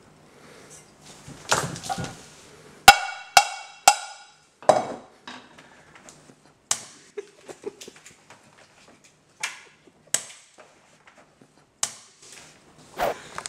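A spoon and pan clanking and tapping in a scattered series of sharp knocks, three of them close together about three seconds in ringing with a metallic tone.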